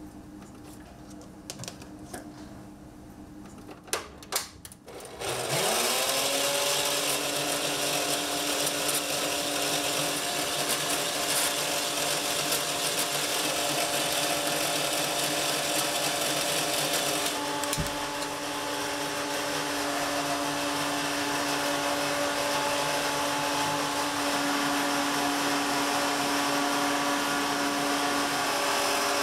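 Electric stand mixer with a wire whisk starting up about five seconds in, its motor quickly rising in pitch and then running steadily as it whips egg whites for a soufflé omelette. A few clicks come just before it starts, and its sound shifts slightly about two-thirds of the way through.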